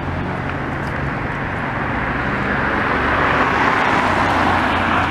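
A small car drives past close by, its tyre and engine noise swelling to a peak about three to four seconds in.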